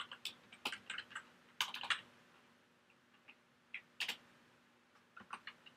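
Typing on a computer keyboard: quick runs of keystrokes through the first two seconds, a pause, a couple of keys about four seconds in, and more keystrokes near the end.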